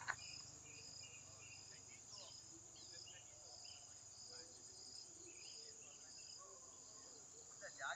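Faint, steady high-pitched insect trill, with a second insect call pulsing about twice a second over it.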